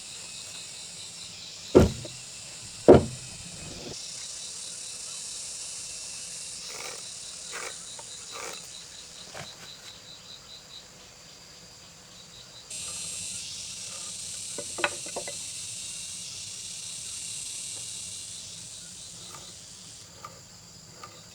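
Insects chirring steadily with a fast high pulsing trill; the chorus gets louder about halfway through. Two sharp knocks come about two and three seconds in, with a few lighter taps later.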